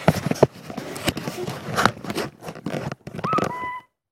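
Handling noise on a phone's microphone: irregular scraping, rubbing and knocking as the phone is moved and turned around, with a brief high tone near the end before the sound cuts out abruptly.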